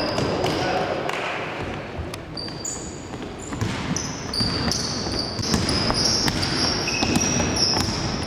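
Basketball game in an echoing sports hall: sneakers squeak on the court floor in many short high squeals, thickest in the second half, with the ball bouncing and thudding among them and players calling out.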